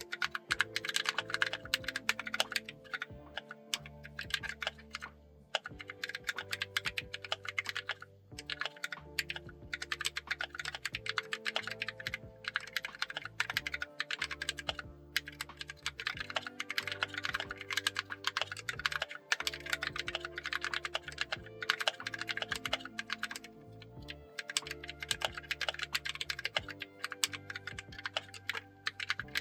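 Fast, continuous typing on a mechanical keyboard fitted with freshly lubed Kailh purple switches and cherry-profile double-shot keycaps. It is a dense run of keystroke clacks over background music.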